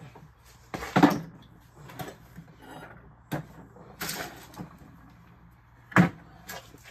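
Knocks and clatters of tools and tool cases being picked up and moved about, the loudest about a second in and another sharp one about six seconds in, over a low steady hum.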